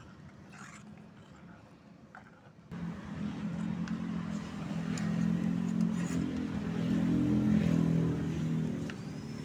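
Metal spoon stirring and tapping in a pot of chocolate jelly mixture, a few light clicks. From about three seconds in, a low droning hum like an engine sets in, grows louder, and eases near the end.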